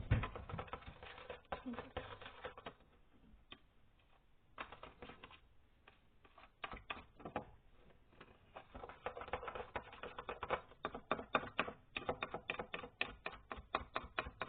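Glue and colouring being stirred in a bowl for slime, the stirring utensil clicking and tapping against the bowl. The clicks are scattered at first and become a fast, steady run about two-thirds of the way in.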